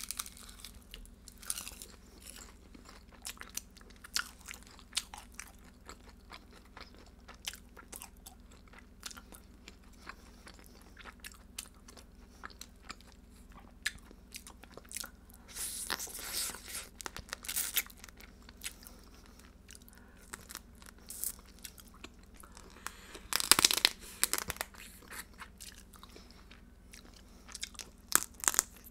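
Close-miked eating of spicy marinated raw blue crab (yangnyeom gejang): biting, chewing and crunching, with many scattered small clicks. Two louder, longer noisy stretches come about halfway and about four-fifths of the way through.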